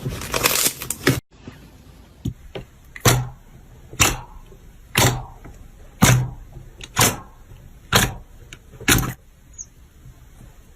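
Slime being handled for ASMR: a dense crunchy crackling that cuts off about a second in, then a run of sharp pops about once a second, seven in all, with a few fainter clicks between.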